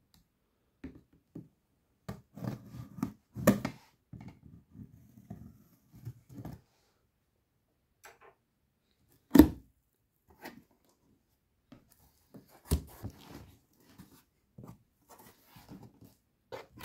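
Cardboard shipping box being cut open and handled: a knife slitting packing tape, then cardboard flaps and packing scraping and rustling, with scattered knocks, the loudest a single thump about nine seconds in.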